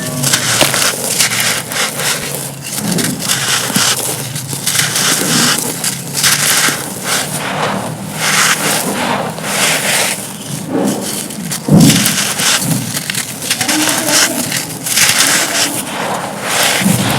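Dry, brittle, dusty cones and stone-like chunks being crushed and crumbled by hand. It is an irregular run of crisp crunches and gritty scraping, with a sharper, heavier crunch about twelve seconds in.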